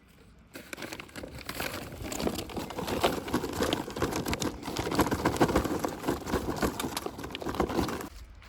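Dense crackling and rustling noise, a rapid jumble of small clicks, that starts about half a second in and cuts off abruptly near the end.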